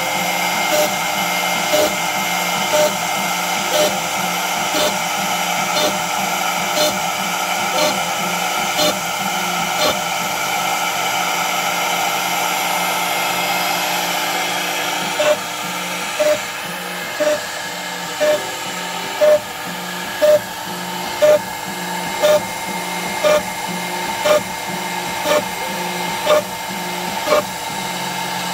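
CNC router spindle running steadily with a high whine while its small end mill cuts a honeycomb of pockets into a wooden board. A short, louder cutting burst comes about once a second as each pocket is cut, and these bursts grow louder about halfway through.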